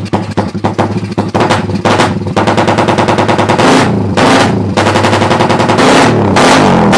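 Suzuki Raider 150 carbureted single-cylinder four-stroke engine through a loud open aftermarket 'bulate' exhaust pipe. It starts with a rapid staccato of exhaust pops at idle, then is revved in repeated throttle blips, and from about five seconds in is held at high revs.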